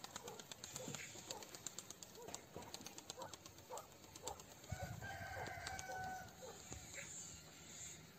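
Birds calling: a run of short calls over faint clicks, then a longer held call lasting about a second, starting about five seconds in.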